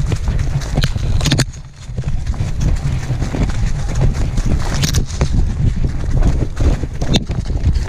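Tracking dog running through dry leaves and brush, heard from a camera harness on its back: a steady rumble of jostling and quick footfalls, with brush scraping and knocking against the camera.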